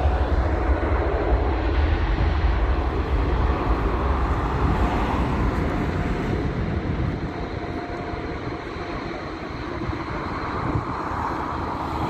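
Jet engines of an Emirates Boeing 777 on the runway: a loud, low rumble that fades steadily as the airliner moves away.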